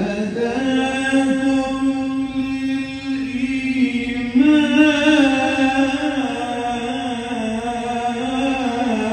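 A man reciting the Quran in the melodic qirat style into a microphone, amplified: long held notes on one pitch, stepping up to a higher note about four seconds in and sliding back down near the end.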